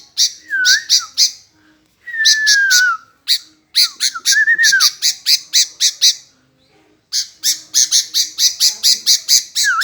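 Sooty-headed bulbul (kutilang) calling without pause: bursts of rapid harsh chattering notes, several a second, mixed with short whistled phrases that slide up and down, broken by brief gaps about every second or two.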